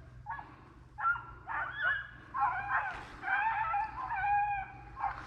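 A pack of rabbit hounds baying: drawn-out, overlapping bawls from several dogs, the chorus of hounds giving tongue as they run a rabbit's track.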